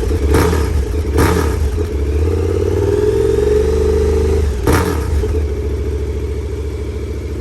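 A 2020 KTM 1290 Super Adventure's V-twin engine running on its stock exhaust. A couple of brief sharp sounds come in the first second and a half. The engine revs slowly up from about two seconds in, then drops back to idle just before five seconds.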